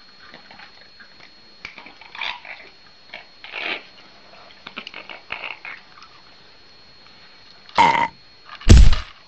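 A cat and an Amazon parrot squabbling over a food bowl: scattered soft clicks and short noises while the cat eats, then two loud harsh outbursts about a second apart near the end as the cat lashes out at the parrot.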